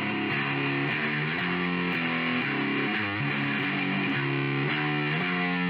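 Outro music: distorted electric guitar playing a riff with a steady beat.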